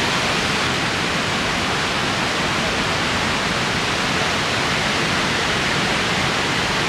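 Steady, even rushing noise that holds at one level without breaks or gusts.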